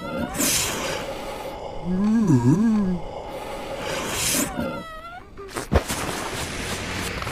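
Cartoon soundtrack: a character's wordless vocal sounds over a hissy sound bed, with one voice-like call that dips and then rises again about two and a half seconds in.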